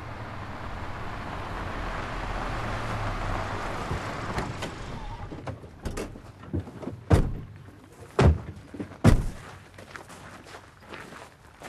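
An old Mercedes-Benz saloon rolls up on gravel with its engine running, then goes quiet. From about six seconds in its doors are opened and slammed shut, the three loudest slams about a second apart.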